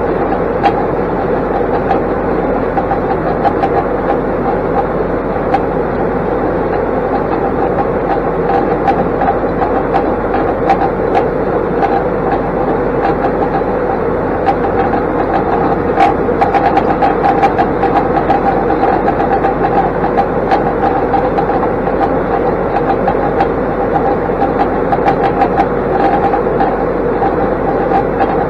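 Massey Ferguson 4707 tractor's diesel engine running steadily while pulling a Kubota round baler, with light rattling and ticking throughout.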